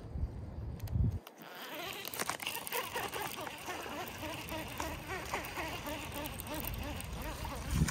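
Baitcasting reel being cranked steadily as a small bass is reeled in, a continuous whirring. Wind buffets the microphone in the first second.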